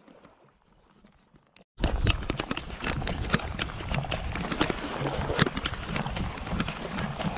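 Footsteps crunching on sand and shells, a dense rhythmic run of crunches with a low rumble of wind on the microphone, starting abruptly about two seconds in after near silence.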